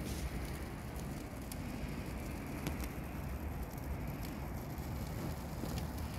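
Branches burning in a metal barrel fire, crackling with a few scattered sharp pops over a steady low rumble.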